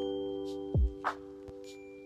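Background music: held chords with a few short bell-like strikes, and one tone that drops steeply in pitch just under a second in.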